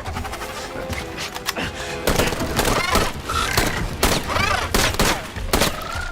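Film action soundtrack: rapid bursts of gunfire and heavy impacts, coming thick and loud from about two seconds in, over background music.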